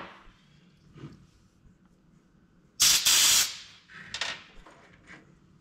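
Compressed-air blow gun blasting out small carburetor parts: one loud hissing blast about three seconds in, followed by two shorter puffs.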